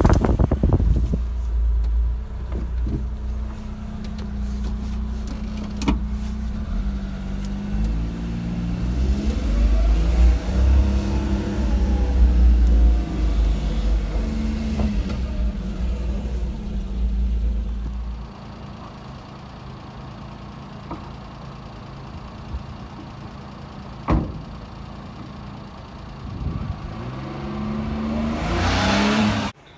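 The Daihatsu Midget II kei truck's small 660 cc three-cylinder engine running while the truck is driven, its pitch rising and falling with the throttle over a deep rumble. About two-thirds of the way through it drops to quieter, steadier running, with a couple of sharp clicks. Near the end it revs up again.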